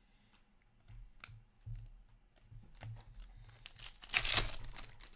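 Hands handling hockey trading cards and their pack. A few faint card clicks are followed, about four seconds in, by a loud papery tearing rustle lasting about a second.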